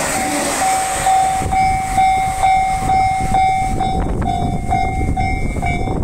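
Japanese level crossing's electronic warning bell clanging about twice a second. The rushing running noise of a passing JR 701-series electric train fades out within the first second or so.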